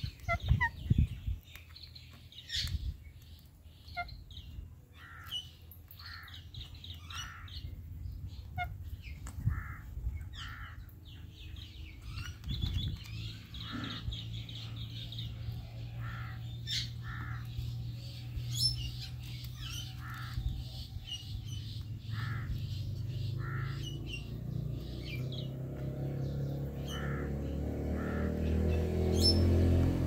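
Parakeets, an Indian ringneck and an Alexandrine, giving short repeated chirps and calls with a few sharp clicks. In the second half a low engine hum comes in and grows steadily louder.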